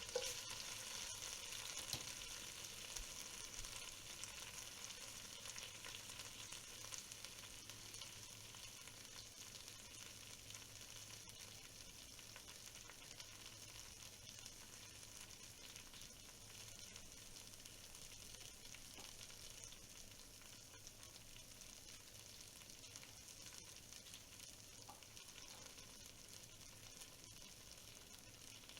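Food sizzling in a hot pan: a steady, faint frying hiss that slowly dies down, with a few small clicks near the start.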